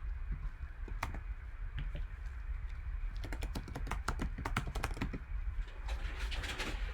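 Typing on a computer keyboard: a single key tap about a second in, a quick run of keystrokes in the middle, and a denser clatter of keys near the end, over a steady low hum.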